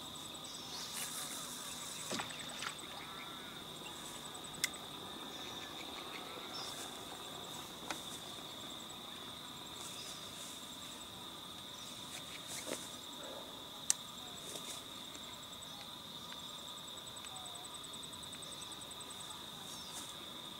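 Steady, high-pitched trill of insects, with a second, faster pulsing trill above it. A few brief rustles and two sharp clicks, one about a quarter of the way through and one about two-thirds in.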